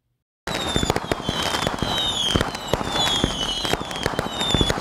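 Fireworks sound effect: dense crackling and popping with a string of short, high falling whistles, starting about half a second in.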